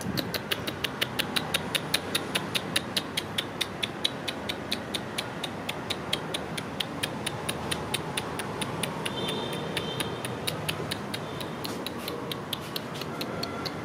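Rapid, even clicking, about five clicks a second. It fades in the middle and picks up again near the end.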